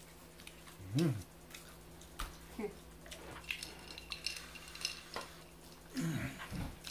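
Quiet eating sounds during a mukbang: scattered small clicks and taps of cutlery and dishes. A short vocal sound comes about a second in and another near the end.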